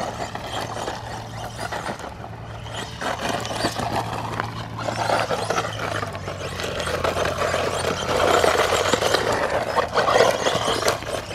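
HBX 16890 brushless RC truck driving over loose dry dirt: a rough run of tyres scrabbling and throwing dirt, with the motor's whir and small clicks of grit. It grows louder toward the end as the truck comes close.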